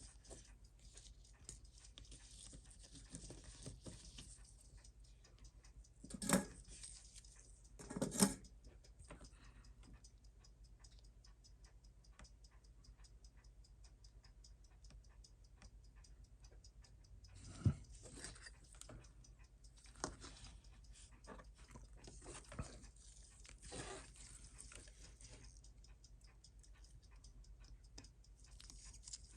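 Faint small clicks and taps of watchmaker's tools on a watch movement being taken apart, with two brief louder scuffing noises about six and eight seconds in and a sharp tap a little after seventeen seconds, over a faint steady hum.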